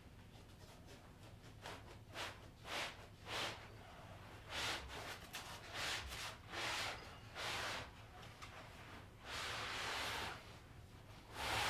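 A run of short rubbing and scraping swishes, about a dozen, as a foam-packed floorstanding loudspeaker is worked and slid out of its plywood shipping crate. The foam drags against the crate walls. A longer swish comes near ten seconds in, and the loudest near the end.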